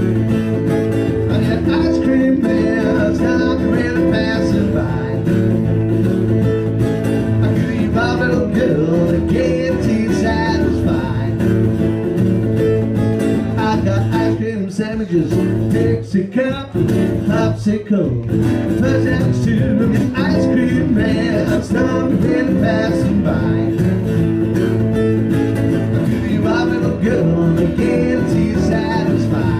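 A man singing a rhythm and blues song while strumming a Taylor acoustic guitar. The playing thins out briefly about halfway through, then picks up again.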